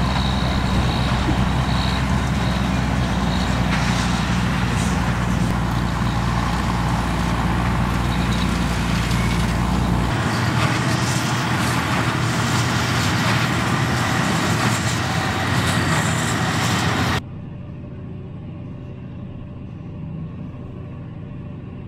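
Fendt 820 Vario tractor's diesel engine running steadily as it pulls a Claas Liner rotary hay rake across the field. About three-quarters of the way in, the sound cuts suddenly to a quieter, muffled steady hum from inside a tractor cab with a big square baler working behind.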